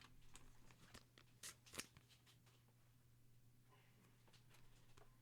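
Faint clicks and rustles of trading cards being handled and flipped through, with a few soft snaps in the first two seconds, over a low steady hum.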